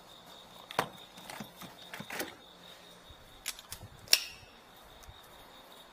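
Equipment being handled and pulled out of a van: a scatter of several sharp clicks and knocks, the loudest about four seconds in.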